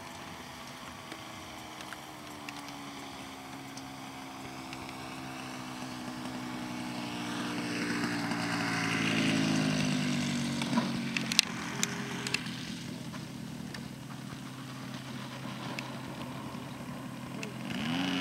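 Engine and propeller of an RC Seagull Extra 300S model airplane running at low throttle, its pitch falling slowly. It grows louder to a peak about nine seconds in as the plane passes close, then fades. A few sharp clicks come around eleven to twelve seconds in.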